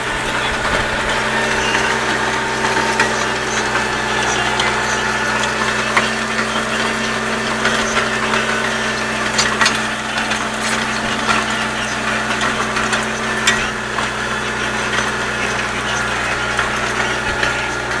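John Deere 6210 tractor's four-cylinder diesel engine running steadily at a constant pitch while pulling a mouldboard plough, heard from the cab. Occasional sharp ticks and rattles sound over the engine.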